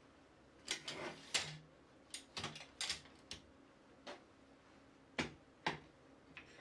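Sharp knocks and clacks of wood and hand tools being handled on a workbench. There are two quick clusters of clicks in the first three and a half seconds, then a few single knocks spaced out.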